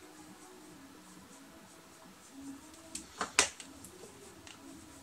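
Faint brushing of a make-up brush on skin, then a quick cluster of three or four sharp plastic clicks about three seconds in, as make-up items are handled and a cosmetic stick's cap is pulled off.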